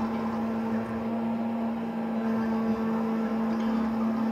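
Small 3040 CNC router's spindle running with a steady hum, its bit milling a Corian tile to cut out a ring.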